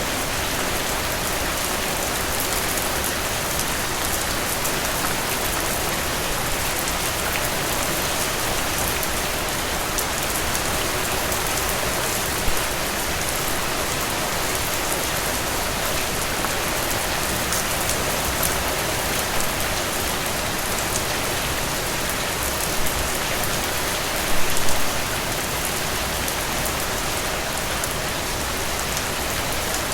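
Heavy rain falling steadily, an even hiss of many drops on a surface, with a few louder drop splashes about halfway through and near the end.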